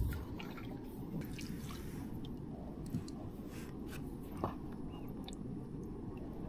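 Lake water dripping and splashing lightly as a prawn scoop net is lifted from shallow water, with scattered small drips over a low steady rumble.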